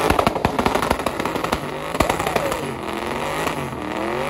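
A car engine revving hard during a tire-smoking burnout, its pitch rising and falling again and again, with a rapid series of sharp pops and cracks.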